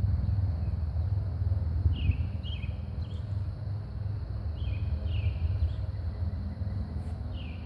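Wind buffeting the microphone as a steady low rumble, with a bird calling in short chirping phrases about 2 seconds in, about 5 seconds in and again near the end.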